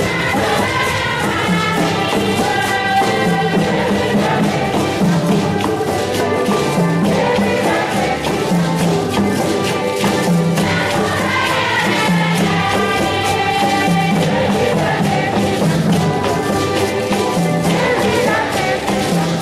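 Church choir singing a hymn in Mooré, with a steady hand-percussion beat keeping time under the voices.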